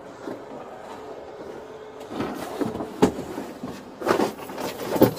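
Clothing rustle and a few knocks and bumps as a person climbs out of a police car's hard plastic rear seat. It starts about two seconds in, with the loudest knocks about three seconds in and near the end.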